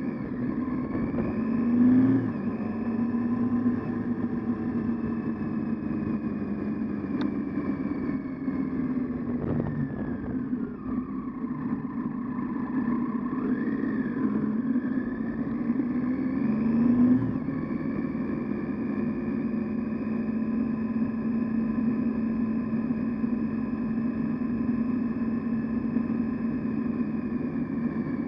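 Triumph Tiger 800XC's three-cylinder engine running under way, its note climbing on the throttle about two seconds in and again near the seventeen-second mark, and easing off for a few seconds in the middle, over steady wind and road noise.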